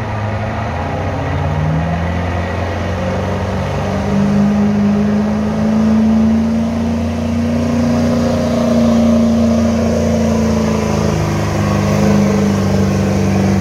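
Diesel pickup truck engine running hard under load as it drags a weight-transfer pulling sled. The engine note climbs in steps over the first few seconds, holds high, dips briefly near the end and comes back up.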